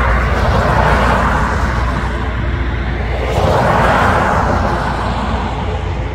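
Vehicle noise: a steady low rumble with two swells of rushing noise as something passes, one at the start and a louder one about four seconds in.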